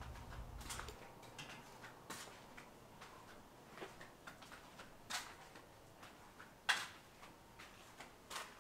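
Quiet night-street ambience with scattered light clicks and taps at irregular intervals, the loudest about two-thirds of the way through. A low hum stops about a second in.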